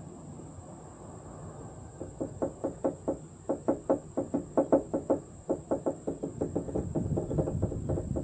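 A rapid run of light knocks or taps, several a second, starting about two seconds in and going on steadily.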